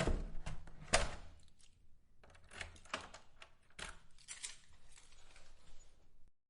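A door being worked open and shut: two knocks about a second apart, then a run of smaller latch and handle clicks and rattles.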